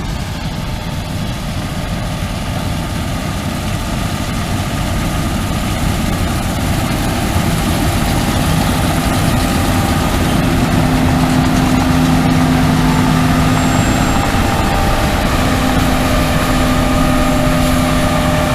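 John Deere S780 combine running steadily while harvesting rye, a dense machine drone that grows slowly louder, with a steady low hum coming in about halfway through.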